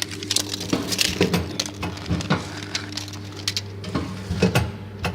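Vertical form-fill-seal bagging machine running with a steady hum, with a higher steady tone that stops about halfway through, under irregular sharp clicks and rustles of the packaging line and the plastic film packs.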